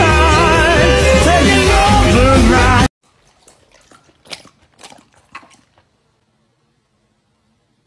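Pop song with a sung vocal that cuts off abruptly about three seconds in. Faint, irregular clicks and taps follow for a few seconds, then near silence.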